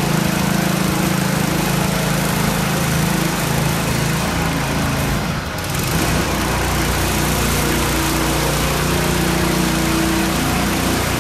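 A motor-driven pump running steadily, feeding the helicopter spray boom as its nozzles spray, with a hiss over the motor's drone and a brief dip in level about halfway through.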